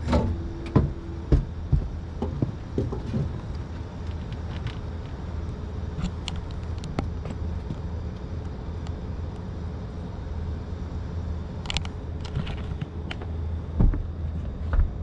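A steady low hum, with scattered knocks and clicks and a louder thump near the end.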